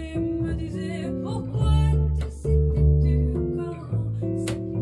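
A small band playing a song: guitar over double bass, with a cymbal stroke from the drums near the end.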